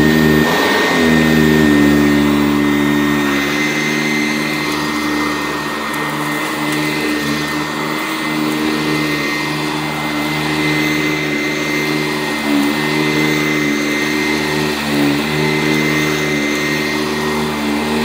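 Sanitaire SC889A commercial upright vacuum running on carpet: a steady motor hum with a high whine. Its pitch dips briefly about a second in and a few more times as it is pushed along.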